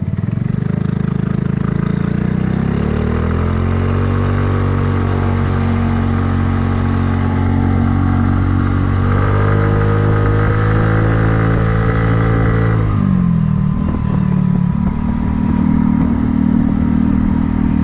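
Kymco People 250 scooter's single-cylinder engine running under way, its exhaust leaks plugged with JB Weld high-heat epoxy: it picks up speed with a rising engine note about three seconds in, holds steady, then drops sharply about thirteen seconds in and runs on at a lower pitch. The exhaust sounds like a normal, quieter scooter rather than a leaking one.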